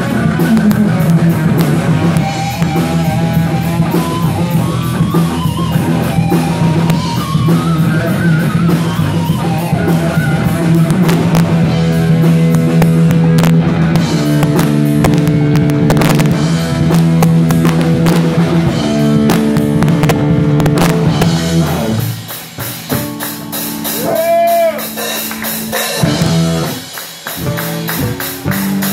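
Live rock band playing an instrumental passage: an electric guitar on a sunburst Les Paul-style guitar plays lead lines, then a repeated riff, over drums and bass. About three-quarters through, the band drops to a sparser, quieter stretch with a single bent guitar note, then comes back in at full volume near the end.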